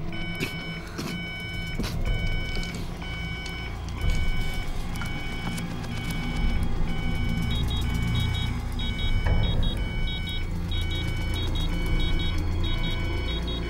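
Bedside patient monitor alarm beeping about once a second, joined about halfway through by a faster, higher double-beep alarm, over a steady low rumble. The alarms signal a patient in distress with crushing chest pain.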